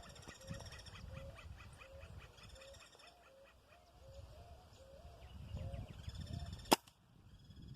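A single sharp shot from a 5.5 mm SR1000 air rifle, fired as a test shot to sight in its scope, near the end. Before it, birds call over and over, about three notes a second.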